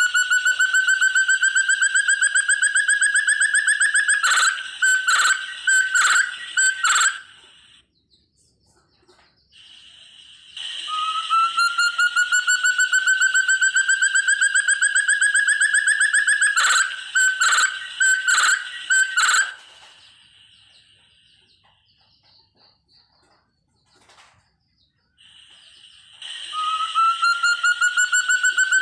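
Puyuh hutan (terung) forest partridge calling: a long, fast run of whistled notes that rises slowly in pitch, ending in a handful of harsher notes. The phrase comes again about ten seconds in, and a third begins near the end.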